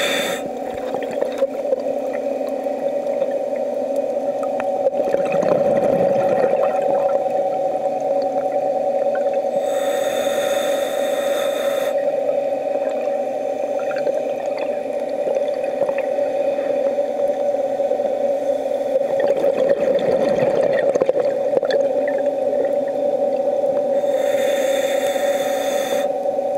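Electric motor of a diver propulsion vehicle (underwater scooter) running with a steady whine, heard underwater. Scuba regulator breathing comes through it: hissing breaths about ten seconds in and near the end, and low rumbles of exhaled bubbles at about six and twenty seconds.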